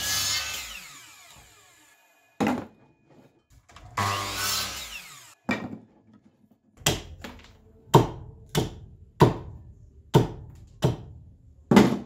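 A DeWalt mitre saw cuts through thin wooden sticks twice, its motor whining down after each cut. In the second half comes a run of about eight sharp chopping knocks: a hatchet striking sticks on a wooden chopping block.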